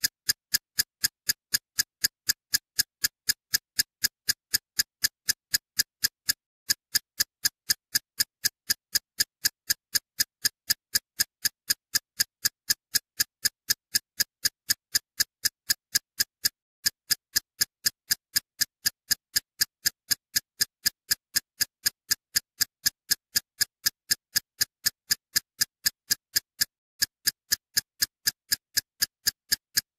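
Steady, even ticking: short sharp clicks about three a second, with a brief break roughly every ten seconds.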